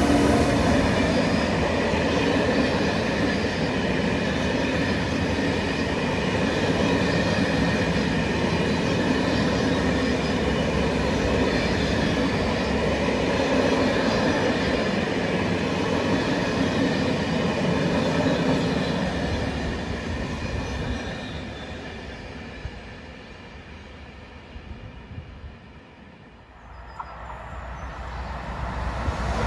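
A train running past on the rails, its wheels giving a steady rumble with thin high tones over it. It fades away after about twenty seconds, and near the end another train starts to approach.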